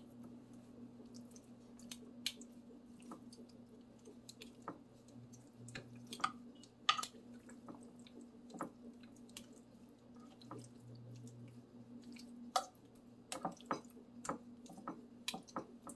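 Metal kitchen tongs turning raw chicken thighs in a ceramic baking dish: scattered light clicks of the tongs and soft, wet squishes of the meat being lifted and dropped, over a faint steady hum.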